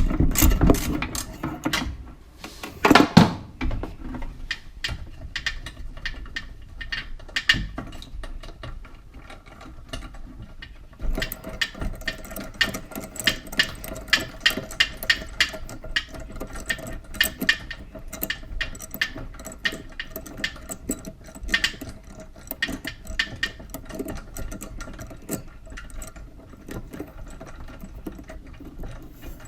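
Extendable ratchet clicking in quick runs as it is worked back and forth on a long-reach socket, undoing the locking nuts under a monoblock tap. There is a louder knock about three seconds in.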